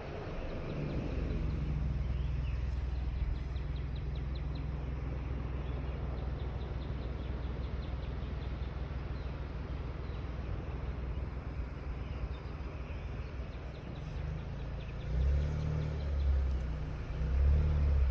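Car driving on a winding road: a steady low engine and road rumble that swells louder near the end, with faint high ticking now and then.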